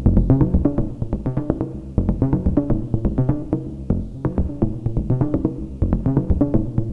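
Eurorack modular synthesizer playing a fast sequence of short, pitched, bongo-like percussive hits, about eight a second, over a deep bass. The hits are shaped through a Klangbau Köln Twin Peak filter and a Make Noise Optomix low-pass gate.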